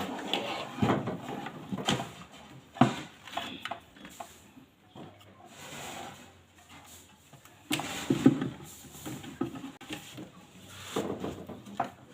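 Irregular knocks, clicks and scraping of objects being handled and moved, coming in clusters, with the sharpest knock about two-thirds of the way through.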